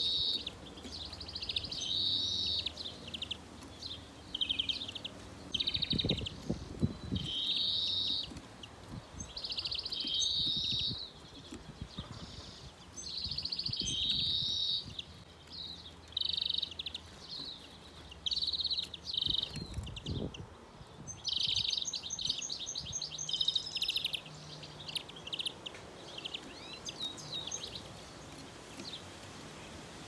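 Greenfinch calls: short chirping phrases repeated every second or two, with a quicker, busier run of calls a little past two-thirds of the way through.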